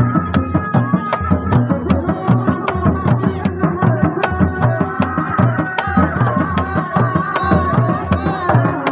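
Sundanese reak ensemble playing: hand-beaten dogdog drums and a large drum pound a fast, steady rhythm, with a high, wavering melody line running over it.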